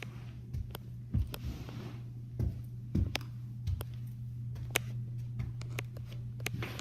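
Steady low hum in a small room, with scattered light clicks and soft knocks from the recording phone being handled and moved close.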